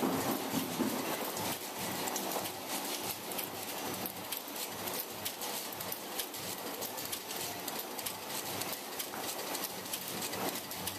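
Automated egg grading machine running: a steady, dense clatter of many rapid clicks from its roller conveyor and metal transfer fingers as the eggs are carried through.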